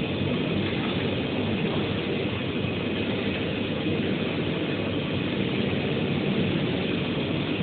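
YD-2513 UV flatbed printer running as it prints on an MDF board, a steady mechanical whir with a faint high whine held throughout.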